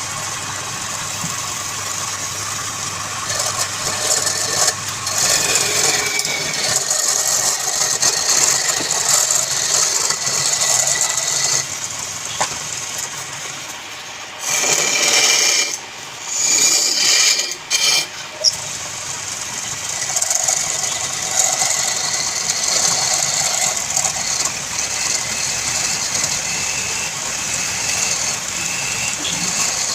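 Wood lathe running with a turning tool cutting the spinning wood, a rattling, hissing noise with two louder cutting passes a little past the middle.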